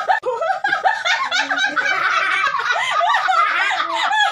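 Two women laughing hard together in high-pitched, quick repeated bursts that overlap, heaviest in the middle.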